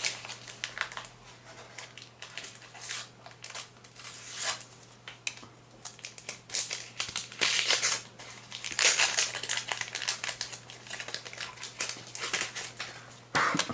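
Paper and stickers rustling and crinkling in irregular bursts as stickers are handled and placed in a sticker album, over a faint steady low hum.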